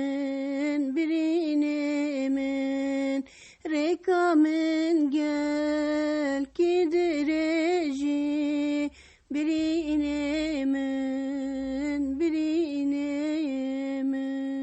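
A woman singing a Kurdish folk song unaccompanied, in wavering, ornamented phrases broken by short breaths; the last phrase ends in a long held note.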